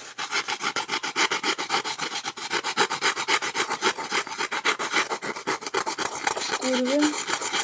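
Sandpaper rubbing over a block of polystyrene foam in quick, regular back-and-forth strokes, smoothing the hull of a hand-made foam boat.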